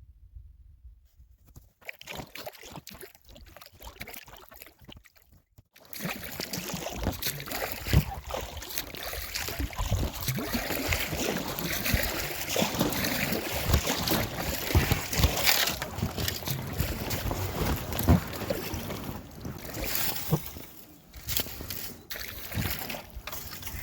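Paddling a packraft: paddle splashes and water sloshing against the boat, with repeated low thumps. The sound grows much louder about six seconds in.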